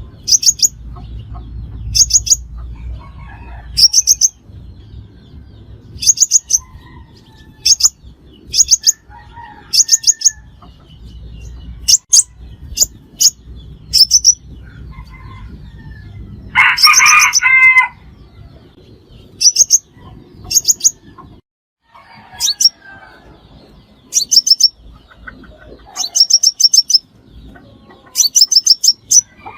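Crimson sunbird calling: sharp, high-pitched chip notes in quick runs of two to five, repeated every second or two. A rooster crows briefly once, a little past halfway.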